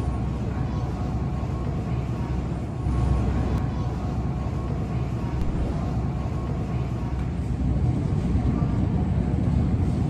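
Steady low rumble of supermarket background noise along a row of freezer cases, with a faint steady hum, a little louder from about three seconds in.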